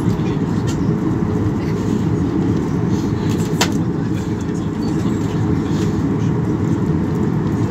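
Cabin noise of a Boeing 737-800 taxiing: a steady low rumble from its CFM56 engines at taxi thrust and the rolling airframe, with one sharp click about three and a half seconds in.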